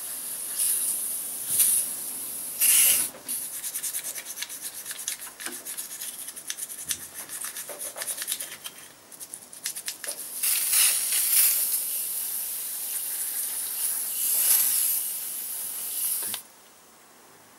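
WD-40 aerosol spray hissing in long bursts onto a motorcycle brake caliper, with a stretch of quick rubbing strokes on the caliper in between; the spray cuts off suddenly near the end.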